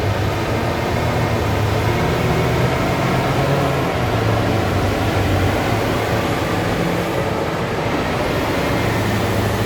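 Heavy mining machinery's large diesel engine running steadily under load, a low hum that rises and falls a little in pitch over a continuous mechanical wash.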